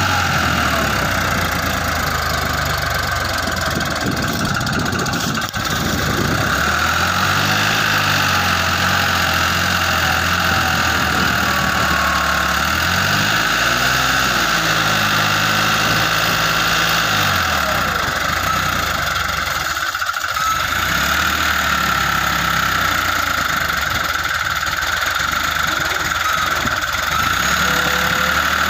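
New Holland 3600-2 tractor's diesel engine running under load while it pulls a loaded trailer, its pitch rising and falling briefly about halfway through.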